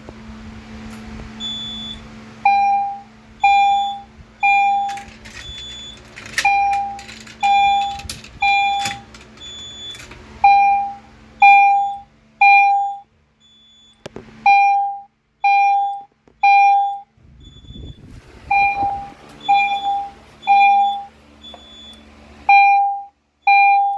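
Fire alarm speaker strobes sounding the temporal-three evacuation tone after a manual pull station is pulled: three loud beeps about a second apart, then a short pause, repeating. A second, higher-pitched tone beeps out of step with them.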